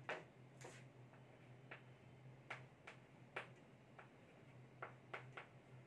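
Chalk writing on a blackboard: faint, irregular short ticks and scratches, about two a second, over a faint steady low hum.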